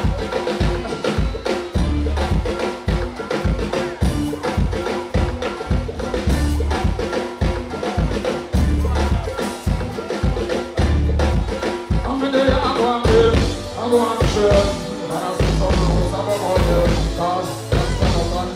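Live dancehall band music: drum kit beat and heavy bass with keyboard and guitar, a vocalist singing over it, more clearly in the second half.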